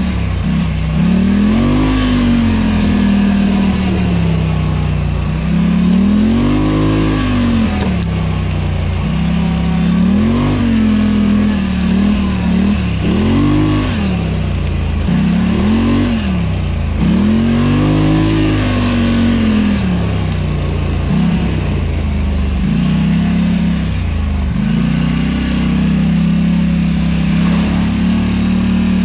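Polaris Scrambler 1000 ATV's twin-cylinder engine running along a trail, its pitch rising and falling again and again as the throttle is opened and eased off.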